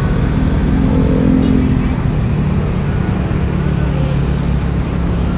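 Motorcycle riding in traffic: steady engine and road noise on the rider's microphone. A steady low tone stands out for about a second and a half, starting about half a second in.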